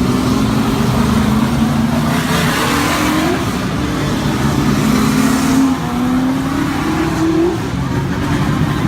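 Race car engines running loudly around a track, their pitch climbing and dropping back several times as the cars accelerate.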